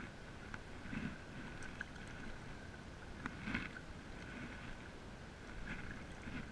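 A stand-up paddle's blade dipping into and pulling through lake water, with a splashy stroke every two to three seconds and a few light clicks.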